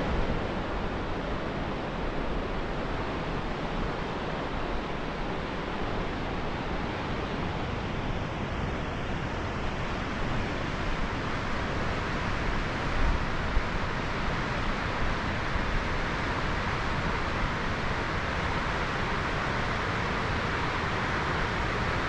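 Steady rushing of a fast-flowing river through rapids.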